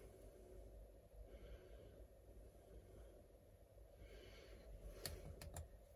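Near silence, with faint breathing and three quick clicks about five seconds in.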